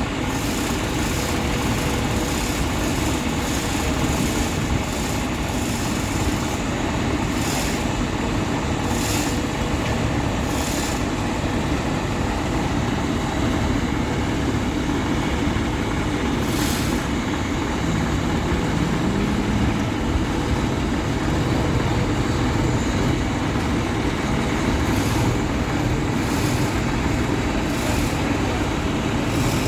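Heavy diesel engine of a mobile crane running steadily under work, a dense low rumble with a short hiss now and then.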